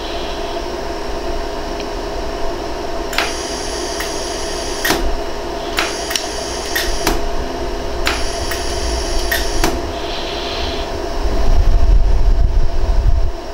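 iWeld jewellery laser welder firing keyhole-weld pulses into a gold ring prong: about a dozen sharp clicks at uneven intervals between about three and ten seconds in, with a high tone holding through the runs of shots, over the machine's steady hum. A low rumble near the end.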